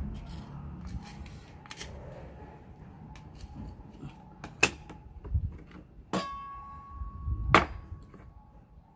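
Oyster being shucked with a knife: quiet scraping of the blade against the shell, then sharp clicks and knocks in the second half. One is a metallic clink that rings on for about a second, and the loudest knock comes near the end.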